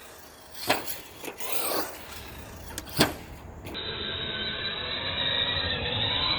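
1/8-scale RC truggy running on a dirt track: a few sharp knocks and clatter first, then, after an abrupt cut a little past halfway, a steadier running sound from the motor and tyres.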